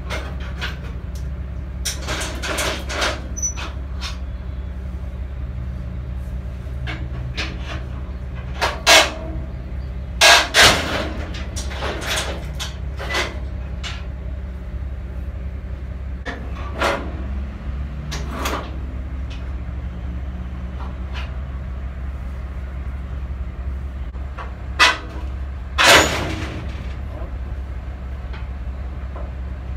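Sharp metal clanks and rattles of tie-down chains and deck hardware being handled inside a car-carrier trailer, a few of them loud, over a steady low hum.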